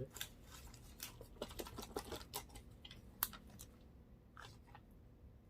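Plastic shrink-wrap being torn off an iPhone box: faint, scattered crinkles and small clicks.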